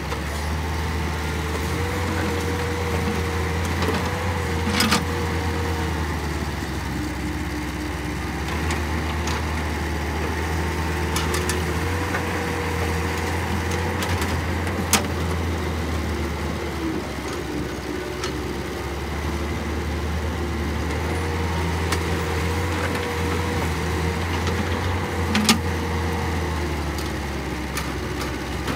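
Caterpillar hydraulic crawler excavator working: its diesel engine runs steadily under a whine that wavers up and down in pitch as the hydraulics dig, swing and dump the bucket. A few sharp clanks from the bucket and linkage.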